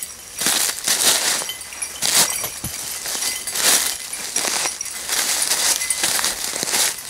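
Rustling and crunching through dry leaf litter and undergrowth in repeated, uneven bursts, like footsteps moving through the woods, with a few light metallic clinks.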